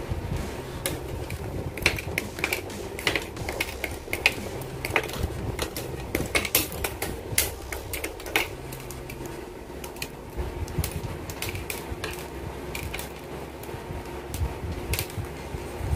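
Irregular sharp clicks and snaps of plastic model-kit parts being nipped from the runner with side cutters, trimmed and pressed together, over a faint steady low hum.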